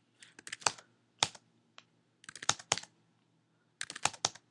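Computer keyboard keystrokes in short, quick clusters of a few taps each, with brief pauses between: short answers being typed one after another.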